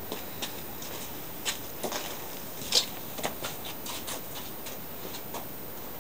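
A few scattered sharp clicks and taps from handling the mower's ignition cable and switch. The electric starter motor never turns over: the starter does not respond.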